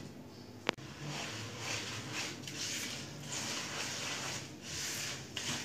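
A bare hand mixing coarsely ground pickle spices into mustard oil in a plastic bowl: a wet, gritty swishing in repeated irregular strokes. A single sharp click comes just before the mixing starts.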